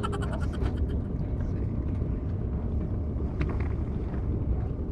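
Small fishing boat's engine running with a steady low rumble, with a few faint ticks about three and a half seconds in.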